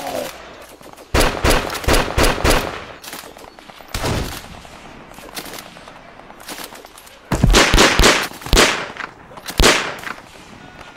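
Gunfire sound effects: a quick run of shots about a second in and another around seven seconds in, with single shots between and near the end.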